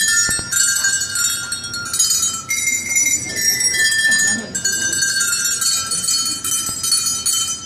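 A set of small tuned bells struck one after another, ringing out a tune in clear, bright notes that change pitch every half second or so and overlap as they ring on.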